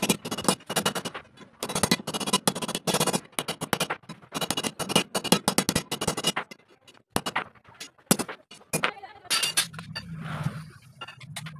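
Hammer tapping a steel strip ring on a pipe stand to shape it: a fast, irregular run of metallic clinks with short pauses. Near the end the taps thin out and a low steady hum comes in.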